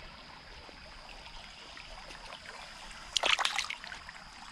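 Shallow creek water trickling over sand and gravel, with a brief splash about three seconds in as a hand dips into the water.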